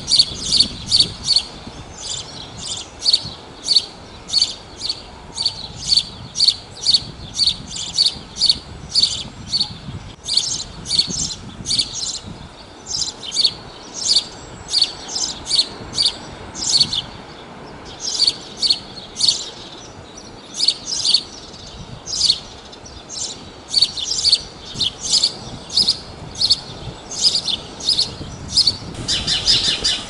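Male house sparrow (Passer domesticus) chirping its song: a steady series of short, high chirps, two or three a second, with a few brief pauses.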